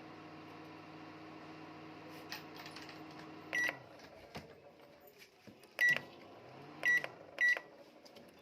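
Microwave oven running with a steady hum that stops with a beep about three and a half seconds in, followed by three more short beeps from its control panel.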